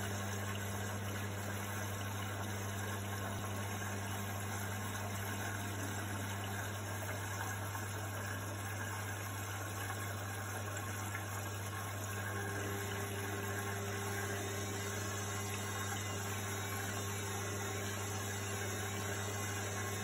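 Indesit front-loading washing machine running with a steady low hum and a wash of noise. A faint higher tone comes in about twelve seconds in.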